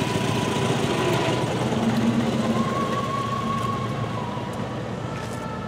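A motor vehicle engine running off to one side, slowly fading.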